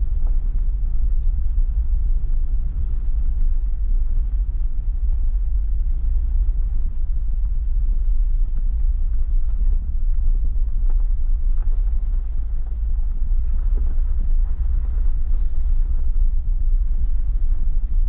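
Jeep Wrangler JL Rubicon driving along a dirt trail: a steady, loud low rumble of the vehicle in motion.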